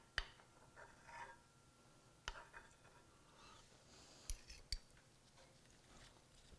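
Mostly near silence, broken by a few light clicks of metal utensils against each other as filling is scooped into phyllo cups, two of them close together about four seconds in.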